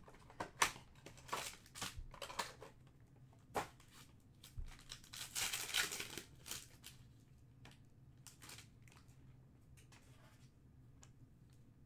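Panini Prizm trading-card box handled and a foil card pack torn open. A scatter of sharp cardboard clicks and rustles comes first, then a dense stretch of tearing and crinkling foil about five seconds in, lasting a second or two, and a few light rustles after.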